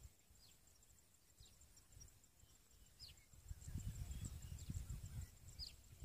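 Faint open-field ambience: an insect's high, rapidly pulsing call and a few short, falling bird chirps. A low rumble of wind on the microphone comes in about halfway.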